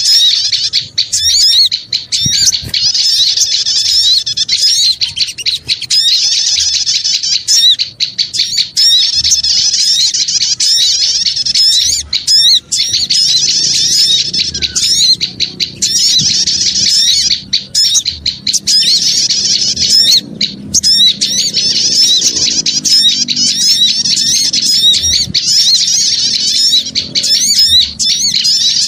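Loud, dense chorus of many small birds chirping and chattering in rapid, unbroken calls: a bird-lure (pikat) recording of noisy small birds played to draw in wild birds.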